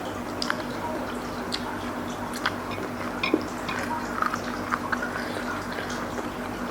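Close-miked eating of spicy seblak: wet chewing and squishing with scattered small clicks and smacks, over a steady low hum.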